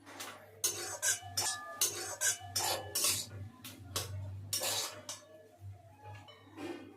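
A spoon stirring a pot of lentils and jute leaves, scraping and clinking against the pot in about a dozen quick strokes, roughly two a second, easing off near the end.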